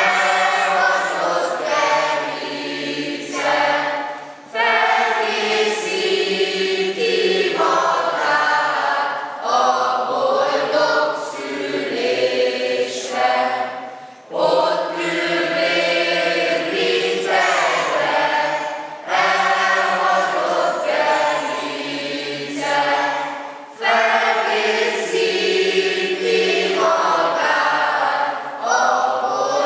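A choir singing in phrases, with brief breaks between them every few seconds.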